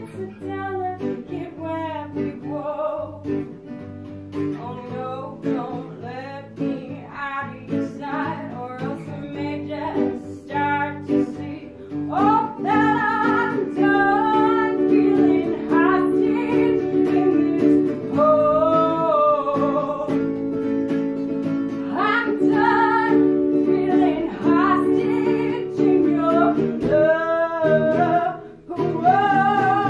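A woman singing a song accompanied by a hollow-body electric guitar, voice and guitar only. The singing and playing grow louder about twelve seconds in.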